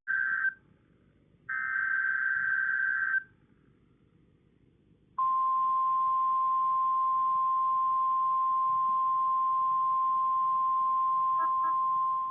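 NOAA Weather Radio emergency alert signal: the last two bursts of the SAME digital data header, each under two seconds with a short gap, then about two seconds of quiet, then the steady single-pitch 1050 Hz warning alarm tone starting about five seconds in. The sequence opens a broadcast alert, here a Tornado Watch.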